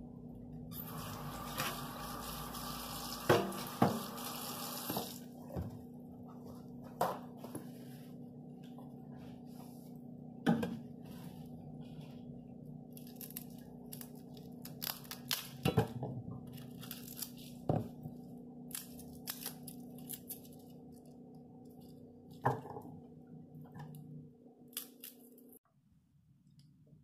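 Kitchen prep handling sounds: scattered sharp taps and knocks of items on the counter, the loudest two early on, over a steady low hum. A few seconds of steady hiss, like a tap running or paper tearing, start about a second in.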